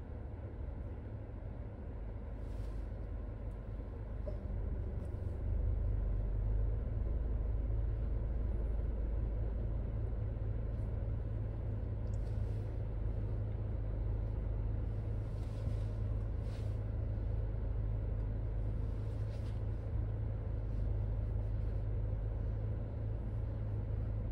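Proton X70's engine idling, heard from inside the cabin as a steady low rumble that grows a little louder about five seconds in.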